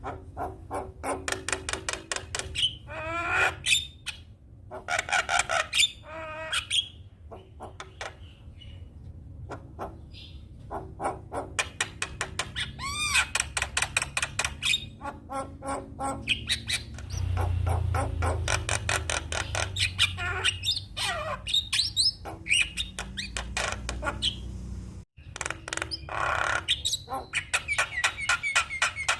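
Javan myna (jalak kebo) singing a long, varied song: fast rattling clicks broken by whistled notes and rising and falling glides. A low rumble sits underneath for several seconds past the middle, and the sound drops out for an instant near the end.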